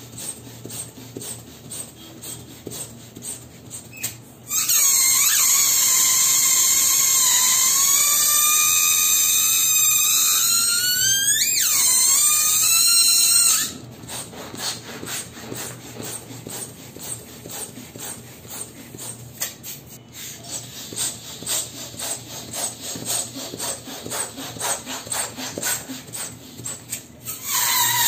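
Air escaping through the stretched neck of a long spiral latex balloon, making a loud high squeal for about nine seconds. The pitch wavers, then rises sharply just before the squeal cuts off as the balloon empties. Quieter rubbery crackling of the handled balloons follows, and near the end a second balloon starts squealing.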